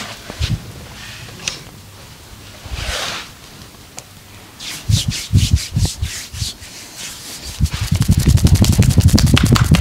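Massage on skin: scattered rubbing strokes and soft pats, then, near the end, a fast, even run of percussive strikes, about ten a second.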